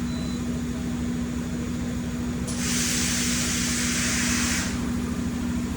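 A blast of compressed air inside a CNC milling machine: a hiss that starts sharply about two and a half seconds in, runs for about two seconds and cuts off. A steady machine hum runs underneath.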